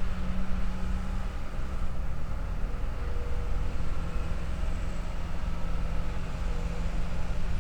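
Wood lathe running with a steady motor hum and low rumble while a vase is turned; the hum's pitch steps down slightly about two seconds in.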